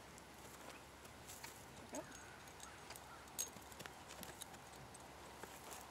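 A horse's hooves stepping a few times on sandy dirt as she is turned around on a halter: faint clicks and soft steps, the sharpest about three and a half seconds in.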